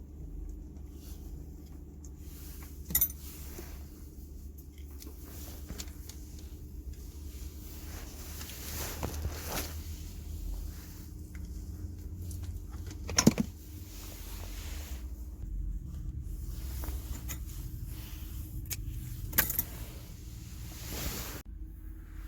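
Small metal parts and tools being handled: scattered light rattling with three sharp clicks, over a steady low hum.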